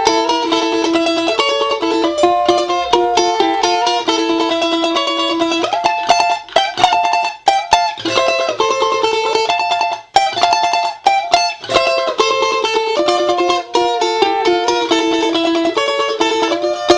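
Background music: fast plucked-string playing, led by mandolin-like picked notes in quick runs, with a couple of brief breaks in the middle.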